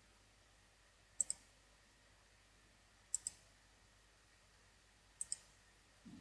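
Sharp double clicks, each two quick strokes, repeating evenly about every two seconds, three times, over faint room tone.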